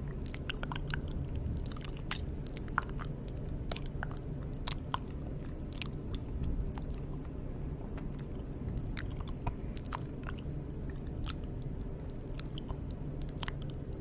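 ASMR mouth sounds close to the microphone: irregular small wet clicks and smacks, over a steady low background hum.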